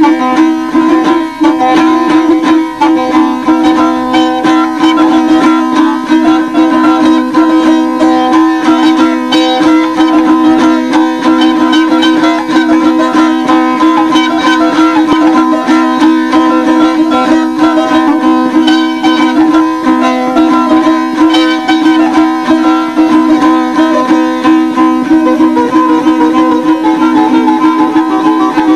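Azerbaijani saz played as an instrumental passage of ashiq music: a fast, evenly plucked melody over a steady ringing drone.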